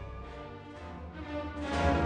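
Background music: sustained orchestral strings over a low bass, growing louder about a second and a half in.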